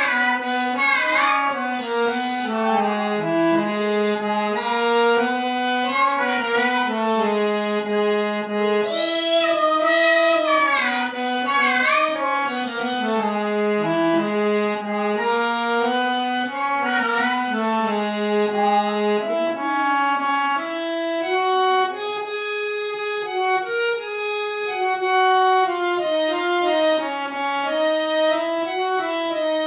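Instrumental music: a reedy melody instrument plays held notes in steps, with sliding, ornamented phrases near the start and again about ten and eighteen seconds in.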